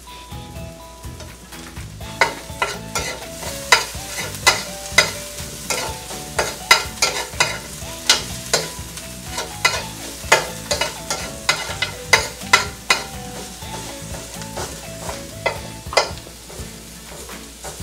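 Metal spoon stirring and scraping diced onion and ginger around a stainless steel frying pan, with sharp clinks of spoon on pan about twice a second starting about two seconds in, over the sizzle of the onions frying.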